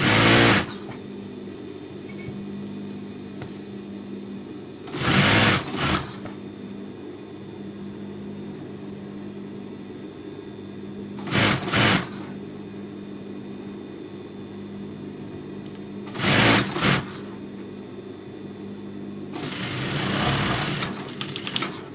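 Industrial sewing machine stitching in five short runs: four brief bursts and a longer one of about two seconds near the end. Between the runs its electric motor keeps humming steadily.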